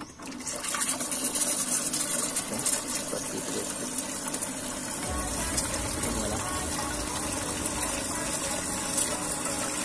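Pumped water pouring in a steady stream from a PVC return pipe into a hydroponic reservoir tank, splashing into the water surface. It starts about half a second in. The splash is meant to put oxygen into the water as bubbles.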